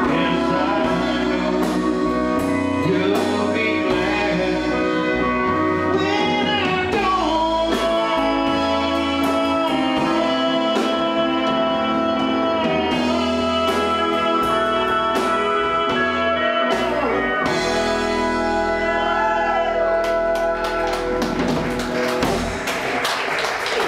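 Live country band: a man singing over electric guitar, bass, drums and pedal steel guitar. The band winds down and the music drops away near the end.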